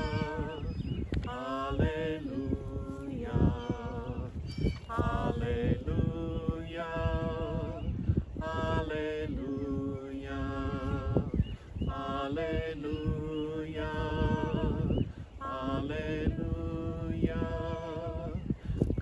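A man and a woman singing together unaccompanied, with long held notes and vibrato, broken by short breaths between phrases.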